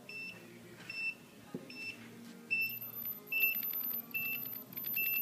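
Traxxas Velineon VXL brushless speed control and motor, powered up, giving a short high beep about every 0.8 s. A faint high-pitched whine and light crackling come in about halfway through.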